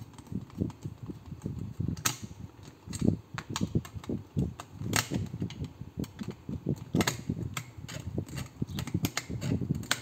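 Small screwdriver unscrewing the screws of a plastic wall dimmer switch: irregular clicking and scraping of the tip in the screw heads, with handling of the switch housing and a few louder clicks.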